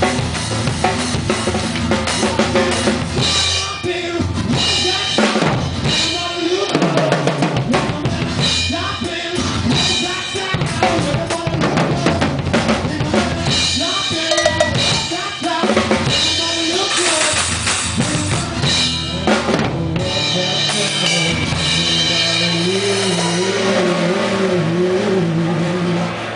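Drum kit played close up, with bass drum, snare and cymbals over a band's bass and guitar, in an instrumental rock passage. Near the end the drums ease off and a sustained, wavering guitar line comes forward.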